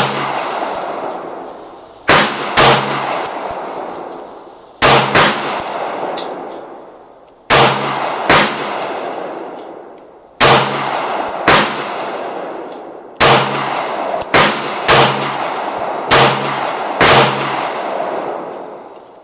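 A 9mm Glock pistol firing about thirteen shots, often in quick pairs about half a second to a second apart, with a pause of a second or two between groups. Each shot rings out with a long echo that dies away before the next.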